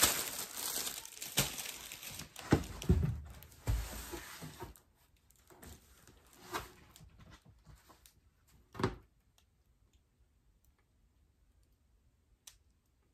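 Packaging being rustled and torn by hand for a few seconds, with several knocks, then two or three separate knocks as items are handled, then near quiet.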